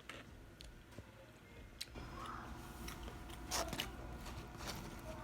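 Someone chewing and biting into chicken wings close to the microphone, with a few sharp crunching clicks in the second half.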